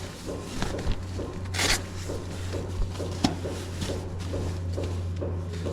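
Sleeping-bag and tent fabric being handled: a brief rustling swish about a second and a half in and a single click around three seconds, over a steady low hum and a faint rhythmic pattern of about three pulses a second.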